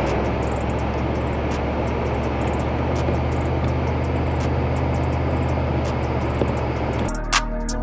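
Cadillac limousine driving on a snowy road: a steady drone of engine and tyres on snow, with scattered sharp ticks. About seven seconds in, music starts.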